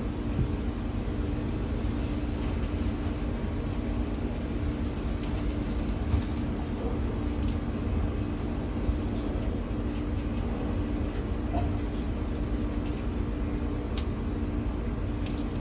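Steady low background hum with a held tone, like a fan or machinery running, over faint scattered clicks of a stainless steel braided hose being worked by hand into the socket of an AN fitting.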